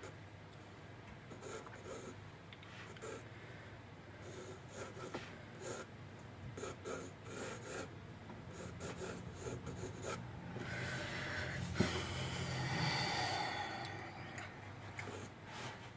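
Pencil graphite scratching on sketchbook paper in short strokes. This is followed by a few seconds of louder breathy noise with a single click in the middle.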